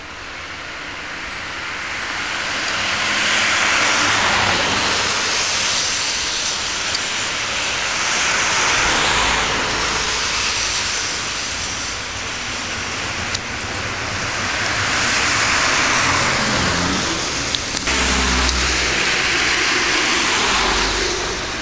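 Trams running on the rails, a rolling noise of wheels on track that swells and fades about four times as they pass.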